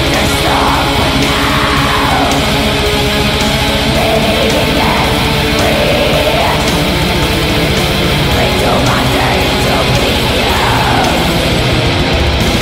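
Black metal recording: dense, loud distorted electric guitars and drums, with melodic lines rising and falling in pitch above them. Just before the end the low end drops away.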